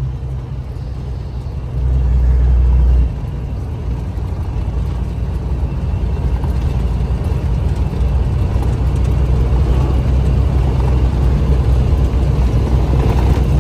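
Diesel semi truck running down the road: a steady low engine and road drone, louder for a moment about two seconds in.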